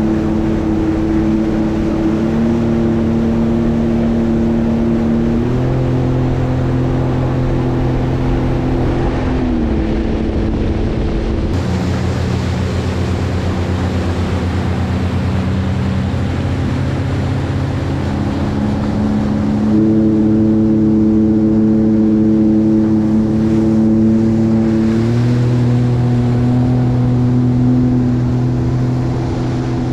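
Sea-Doo GTX 170 jet ski's three-cylinder Rotax engine running under way at cruising speed over water noise. Its steady hum steps up and down in pitch several times as the throttle changes.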